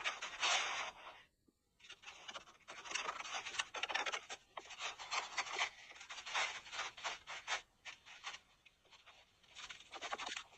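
Irregular rubbing and scratching noises in quick strokes, with a short pause about a second and a half in.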